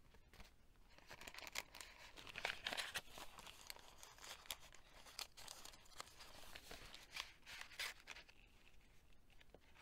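Faint rustling and scraping of paper as a tag is slid out of a pocket in a handmade paper journal and the stiff pages are handled, with scattered small taps and clicks.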